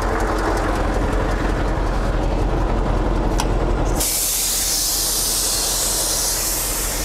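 Scania 143M's V8 diesel engine running steadily with a low drone. About four seconds in, a loud steady hiss starts suddenly over it and keeps going.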